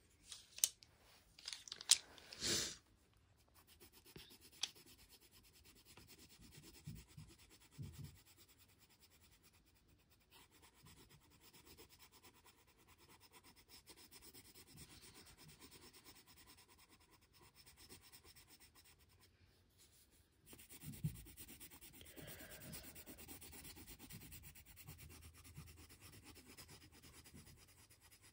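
Colored pencil scratching on paper as a colouring-book page is shaded, faint, getting louder about 21 seconds in. A few sharp knocks come in the first three seconds.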